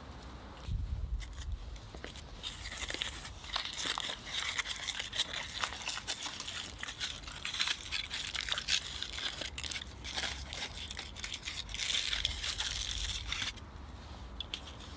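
Aluminium foil crinkling as hands unwrap a foil-baked potato, a dense run of crackles that stops a second or so before the end.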